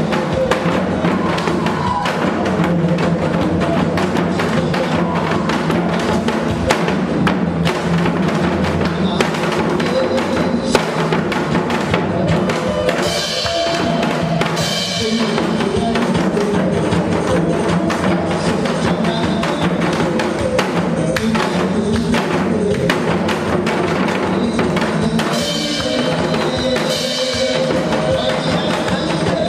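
Janggu, Korean hourglass drums, played in steady rhythmic strokes together with continuous accompanying music.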